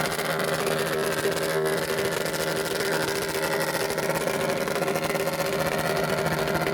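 Super Cub-style small motorcycle engine idling steadily, its note holding an even pitch.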